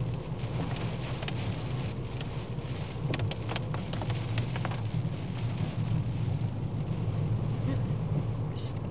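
Inside a small Ford Fiesta's cabin while driving: a steady low rumble of road and engine, with rain hissing and spattering on the car. A cluster of sharp ticks comes about three to five seconds in.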